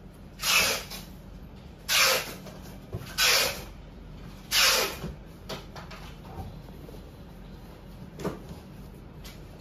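Cardboard postcard box being handled: four brisk swishes of a hand sliding over its surface in the first five seconds, then a few light clicks and one smaller swish near the end.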